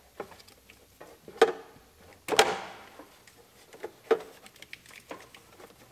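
Plastic heater floor ducts being slid into place under a car's dash: a sharp click about a second and a half in, then a louder plastic knock with a short scrape about two and a half seconds in, and a few faint taps after.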